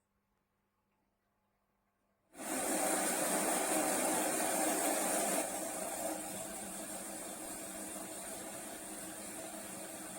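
Steady rushing, hissing air noise that starts abruptly a little over two seconds in and eases slightly about halfway through: a ceiling fan running, its airflow blowing across the microphone.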